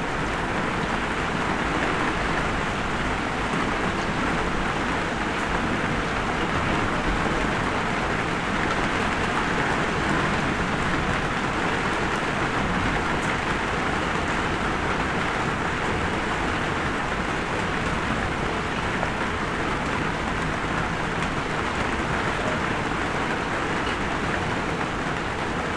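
Light rain falling steadily, an even hiss without a break.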